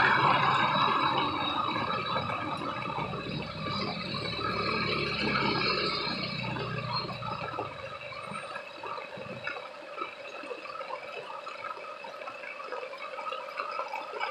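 Rain falling on a paved street, with dense dripping and splashing close by. A motorcycle engine's low rumble passes in the first half and fades out about seven seconds in.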